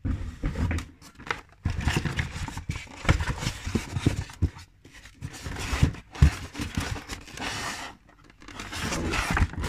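Packaging being handled and pulled open: irregular rustling, tearing and scraping, with many short clicks and knocks and brief lulls about halfway and near the end.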